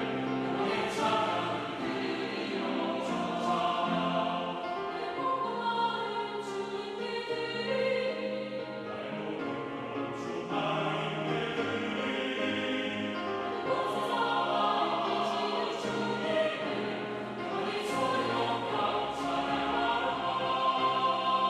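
Mixed choir singing a sacred anthem in Korean, in parts, with piano accompaniment.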